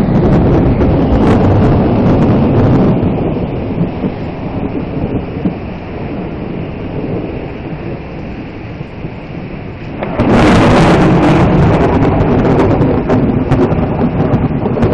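Thunderstorm with rain and a low rumble that eases for a few seconds, then a sudden loud crack of thunder about ten seconds in, rumbling on afterwards.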